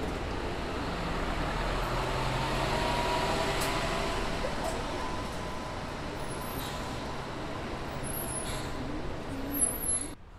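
Keifuku Bus city bus engines running as the buses move through the station street, with steady road noise. A short louder sound comes near the end, then the sound cuts off suddenly.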